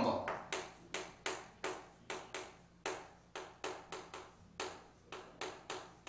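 Chalk writing on a chalkboard: a quick, uneven series of sharp taps and short strokes, about three a second.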